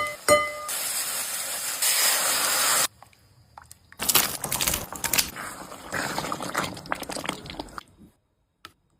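Food sizzling and crackling in a hot pan: a steady hiss at first, a brief lull, then a spell of sputtering crackles that stops about a second before the end. A few music notes finish right at the start.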